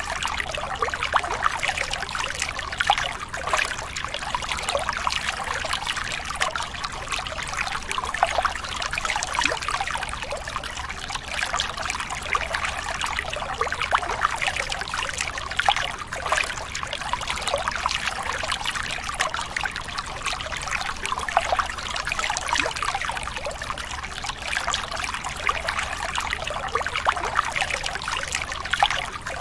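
Steady trickling, running water, an even bubbling with many small splashes, that does not pause or change.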